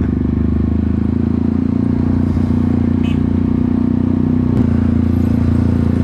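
Yamaha R15 V3's single-cylinder engine running steadily at low revs in slow stop-and-go traffic, with little wind noise on the helmet-mounted mic.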